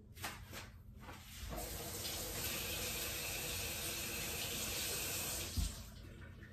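Kitchen faucet running water into a stainless steel sink, a steady rush that starts about one and a half seconds in and stops with a brief thump about a second before the end.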